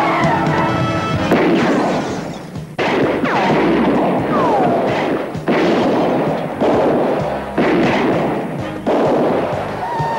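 Action-scene television soundtrack: music under loud, noisy sound effects that cut in abruptly every second or two, with a couple of falling squeals.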